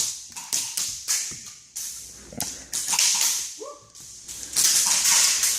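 Indoor airsoft game action: a string of irregular sharp cracks, each trailing off in a hiss, with a longer hissing stretch near the end and a short vocal sound about two thirds through.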